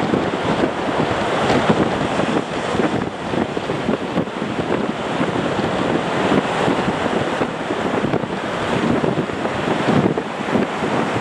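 Wind buffeting the microphone: a loud, gusty rushing that rises and falls throughout.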